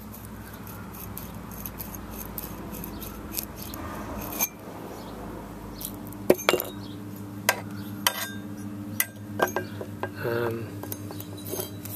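Parts of a cut-open Danfoss filter drier being handled: a string of sharp metallic clicks and clinks as the steel shell, rusty desiccant core and perforated steel screens are pulled apart and knocked together, busier in the second half.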